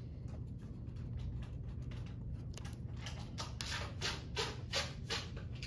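Pencil scratching on paper in a quick run of short strokes through the second half, about three or four a second, over a steady low room hum.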